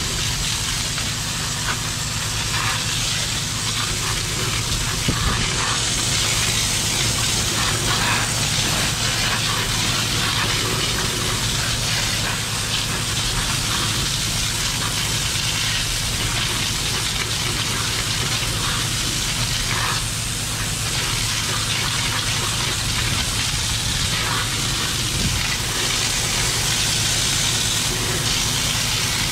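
High-pressure drain jetter at work: a steady hiss of water jetting through the drain over the even hum of the jetter's engine.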